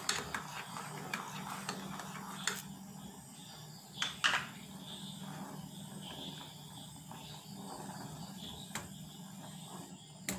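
A faint steady low hum, with a few light clicks and knocks of a silicone spatula against a steel saucepan of milk heating on the stove, the clearest pair about four seconds in.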